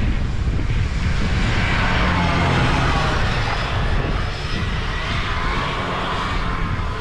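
1979 Scorpion Whip TKX snowmobile's two-stroke Cuyuna engine passing on the trail: its whine comes up about a second and a half in, wavers in pitch with the throttle, and fades near the end. Gusting wind rumbles on the microphone throughout.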